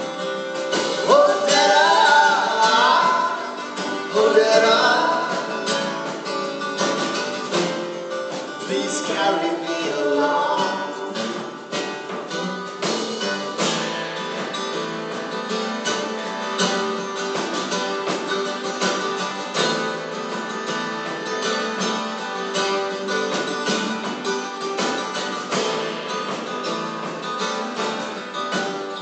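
Live acoustic folk performance: two acoustic guitars playing, with a vocal line without recognised words over them for roughly the first ten seconds, then guitars alone carrying an instrumental passage.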